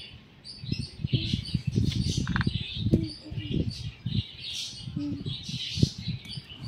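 Small birds chirping over and over in the background. Over them come louder irregular rustles and knocks of leaves and stems as a flower is picked from a potted bush, in two spells separated by a short lull.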